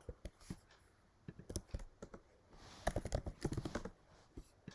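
Typing on a computer keyboard: short runs of key clicks, the busiest run about three seconds in.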